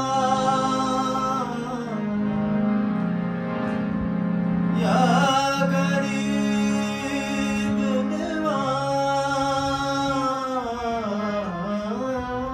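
A man singing a slow Sufi devotional melody with long, gliding held notes over sustained harmonium chords, with tabla accompaniment.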